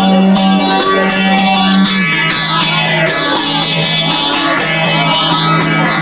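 Bağlama (saz) playing an instrumental passage for a semah dance: a fast plucked-and-strummed melody over a steady drone, its low note stepping down about two seconds in.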